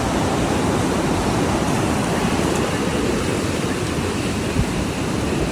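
Ocean surf with wind blowing on the microphone: a steady rushing noise.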